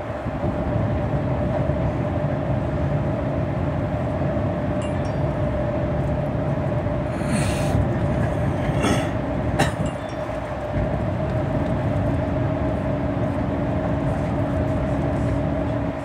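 MAN shuttle bus cruising through a road tunnel, heard from inside the cabin: steady engine and tyre noise with a constant hum. A few short rattles come a little after halfway.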